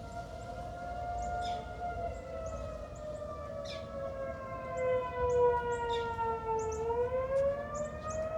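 Federal Signal 2001-130 tornado warning sirens sounding the attack signal, heard together as two tones. Their pitch slowly falls for most of the stretch, then rises again near the end, as the wail cycles.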